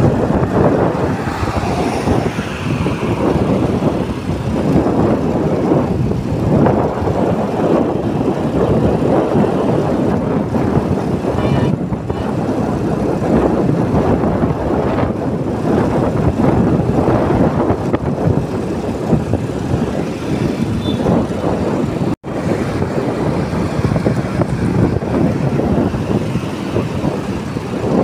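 Wind buffeting the microphone and road rush from a moving motorcycle, a loud, steady, rough noise with no clear engine note. The sound drops out for an instant about three-quarters of the way through.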